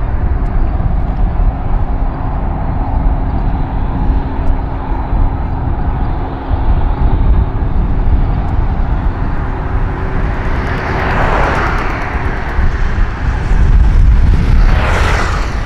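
Distant Boeing 747 freighter's jet engines running as it lines up on the runway: a steady low rumble with a rushing whine that swells about eleven seconds in and again, louder, near the end.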